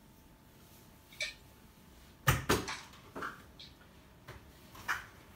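Knocks and clatter in a small kitchen: a sharp click about a second in, a loud double bang just after two seconds, then several lighter knocks, as of a body bumping against the counter, cupboards and things on them.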